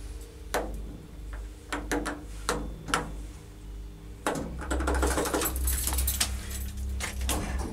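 Push buttons on an elevator car's operating panel clicking as they are pressed over and over, about two clicks a second, over a faint steady hum. About four seconds in, a louder low rumble with rustling takes over.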